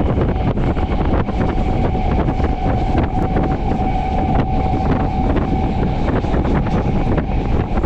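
MEMU electric multiple-unit train running along the track, heard from on board: a steady rumble and rush with frequent knocks and rattles from the wheels, a steady whine under it, and wind on the microphone.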